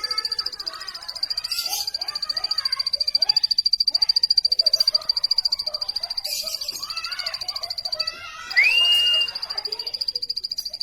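Plain prinia chirping: many short, varied chirping notes over a continuous high, fast-pulsing trill, with a loud whistle that rises and then holds about eight and a half seconds in.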